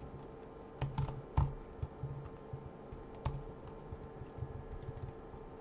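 Typing on a computer keyboard: scattered, irregular keystrokes with short pauses between them.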